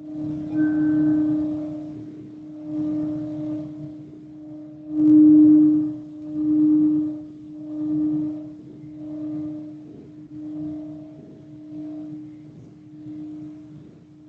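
Singing bowl ringing with one steady low note that swells and fades about every one and a half seconds. It swells most strongly about five seconds in.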